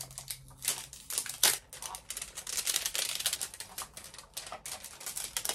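Paper and card being handled: a small paper envelope opened and a card pulled out of it, giving a run of rustling with many light clicks and taps, and a thicker stretch of rustling about half-way through.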